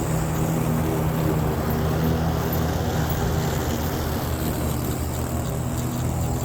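Yeoman eM400C remote-control electric lawnmower running, a steady droning hum from its cutting blade and motors.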